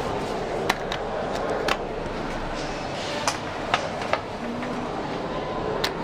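Glass passenger lift in use: a steady background rumble with half a dozen sharp clicks scattered through it.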